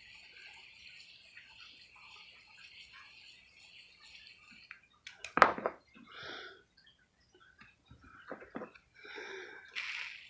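Hose-end spray nozzle hissing faintly as it showers water onto potting soil, stopping about five seconds in. Then a sharp knock, the loudest sound, a few lighter knocks, and the spray starting again near the end.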